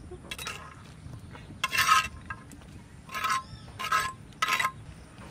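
Spatula scraping fried fish-head pieces off a clay plate into a pot of dal: about five short scrapes, the loudest about two seconds in.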